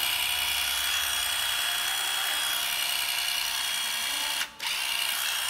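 Hitachi 12V cordless impact driver running at full speed with its hammer mechanism striking. It stops for a moment about four and a half seconds in, then starts again.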